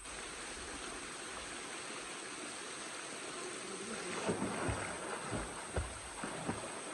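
Steady rushing of falling water from a waterfall. About four seconds in, irregular low thumps start to sound over it.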